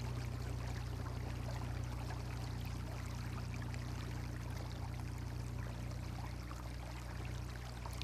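Water rushing and splashing steadily along the hull of a moving kayak, over a constant low hum.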